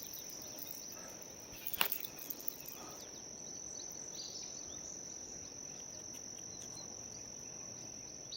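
Insects, most likely crickets, trilling as one steady high-pitched tone with no break. A single sharp click sounds about two seconds in.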